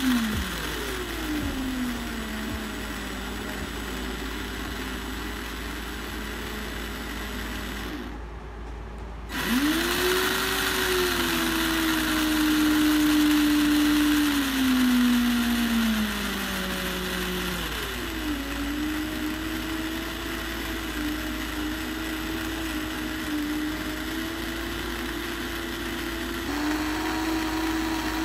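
Small electric gearbox motor driving a homemade cardboard front axle through a chopstick driveshaft, a whine that glides up and down in pitch. It cuts out briefly about eight seconds in, spins back up with a rising whine, drops in pitch a few seconds later, then runs steadily.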